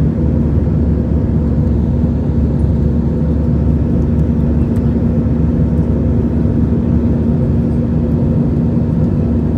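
Steady in-flight cabin drone of an Airbus A320-200: engine and airflow noise, deep and even, with a constant low hum running through it.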